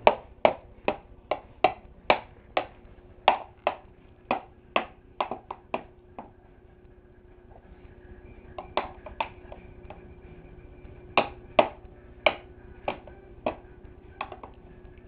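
A metal spoon banging on a plastic high-chair tray: sharp ringing taps about twice a second for the first six seconds, then after a lull a few more taps in small clusters.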